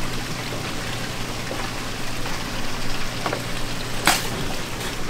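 Running water, steady and rain-like, with a low steady hum and a few short splashes, the loudest about four seconds in.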